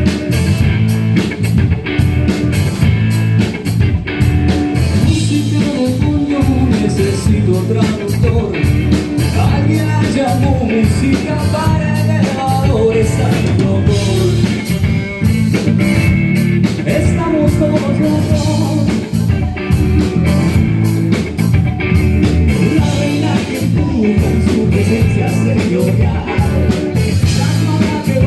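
Rock band playing the song's instrumental opening: electric guitars over a drum kit keeping a steady beat, with a wavering lead melody coming in about five seconds in.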